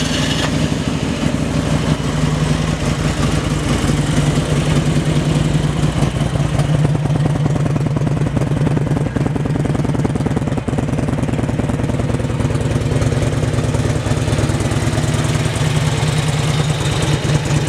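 2004 Harley-Davidson Electra Glide Ultra Classic's air-cooled V-twin running at a steady idle through its Vance & Hines aftermarket exhaust.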